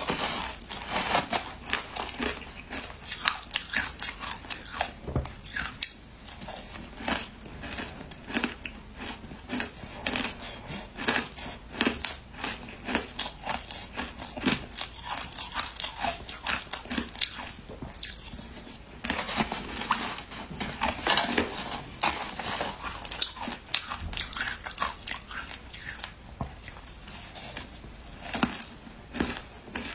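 Shaved ice with matcha powder being crunched and chewed close to the microphone: a rapid, irregular run of crisp crunches, thinning out briefly a little past halfway. A metal spoon scoops into the ice now and then.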